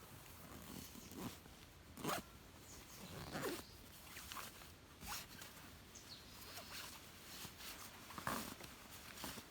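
A zipper pulled in several short strokes with pauses between them.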